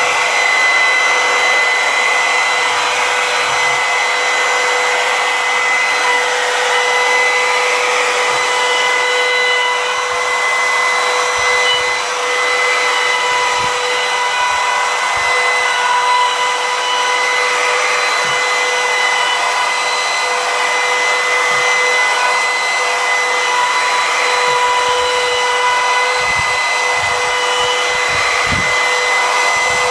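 Compact trim router running at full speed on a router sled, its bit skimming across a walnut slab to flatten it: a steady high motor whine over the hiss of the cut.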